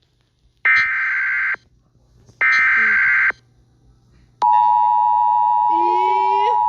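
Emergency Alert System broadcast: two harsh, buzzy data bursts of the SAME header about a second each with short gaps between, then the steady two-tone EAS attention signal starts and holds, announcing a tornado warning. Near the end a voice sounds over the tone.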